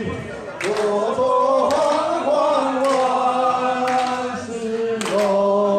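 Men singing a song together, drawing the words out in long held notes, with a few sharp clicks.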